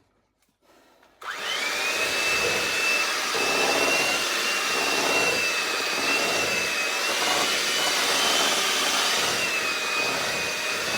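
Electric mixer switched on about a second in, its motor whine rising quickly to speed and then running steadily with a slight waver as it beats cake batter.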